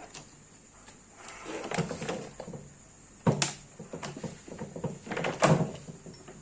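Parts of an electric fan being handled and pulled apart, scraping and rattling, with two sharp knocks a little over two seconds apart.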